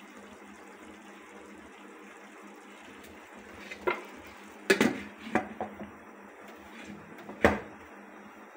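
Cookware being handled: a handful of sharp clanks and knocks of a pan, its glass lid and utensils, the loudest about five and seven and a half seconds in, over a faint steady background.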